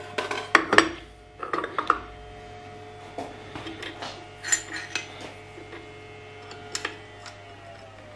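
Steel parts of a milling machine power feed mount clinking and knocking as they are handled: a burst of clatter in the first two seconds, then scattered light metal clicks.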